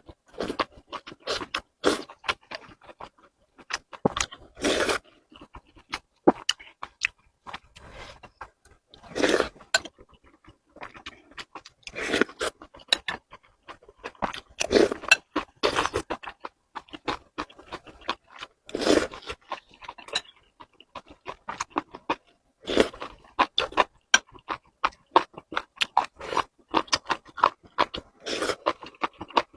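Close-miked eating: chewing and crunching with wet mouth clicks, and a louder bite or mouthful every few seconds.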